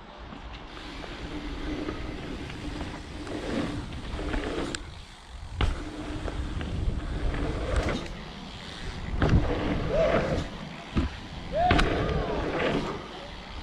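Mountain bike ridden over dirt jumps, heard from a helmet camera: tyres rolling on packed dirt and wind on the microphone rise and fall with speed, with several sharp thumps from landings and rough ground.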